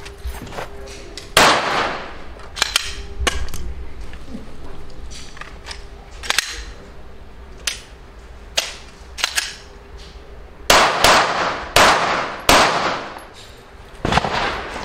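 Gunshots fired at irregular intervals, each a sharp crack with a short echo. There is one loud shot about a second and a half in, fainter shots in between, and a quick run of about five loud shots in the last four seconds.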